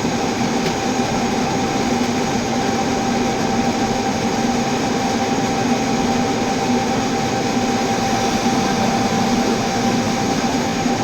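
Metal lathe running while a large boring bar cuts the inside of a steel roller hub: a steady, unbroken machining noise with one constant high tone.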